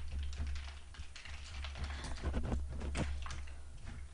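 A long metal spoon stirring ice cubes and fruit in watermelon punch held in a hollowed-out watermelon, giving irregular light clicks and clinks.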